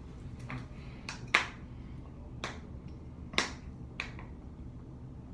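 Thin plastic water bottle crackling as it is squeezed and crushed in the hands while drunk from: about six separate sharp cracks, the loudest just over a second in.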